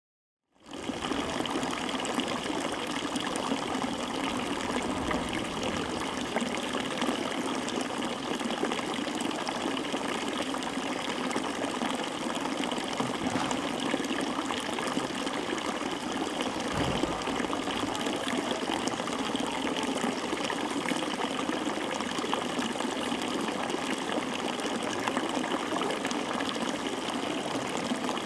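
Steady rushing of water, an even hiss that fades in about half a second in and then holds without change.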